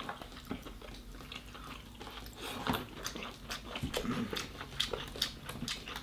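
Soft, scattered clicks and crackles of eating: cooked king crab meat being picked from the shell by hand and chewed, with the clicks coming more often after the first couple of seconds.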